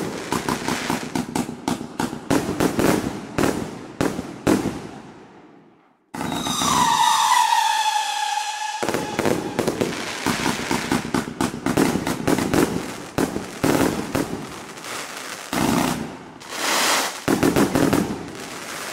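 A 100-shot mixed-tube consumer fireworks cake firing in rapid succession: quick launches and crackling aerial bursts. It fades to a brief gap about six seconds in, then resumes with a howling-tail whistle falling in pitch, followed by more rapid shots and bursts.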